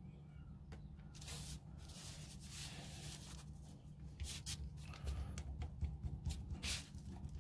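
Small screwdriver turning a tiny screw into a small airsoft 1911 pistol part, giving faint scratchy clicks and scrapes that come more often in the second half, over a low steady hum.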